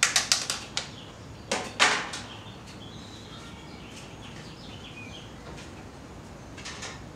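A quick run of sharp plastic clicks and taps, then two louder snaps about a second and a half in, as a small plastic cup of garlic sauce and utensils are handled on a table.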